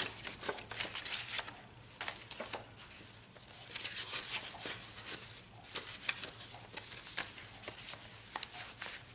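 Paper rustling and rubbing as hands slide a card out of a paper coin envelope in a handmade junk journal and tuck it back, with many small irregular crinkles and taps.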